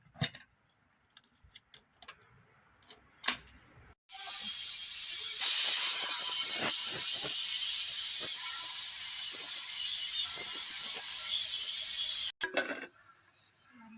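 Pressure cooker whistling: a loud steady hiss of steam jetting from the weight valve, with a faint rattling of the weight in it, starting about four seconds in and cutting off suddenly near the end. Before it, only a few faint clicks.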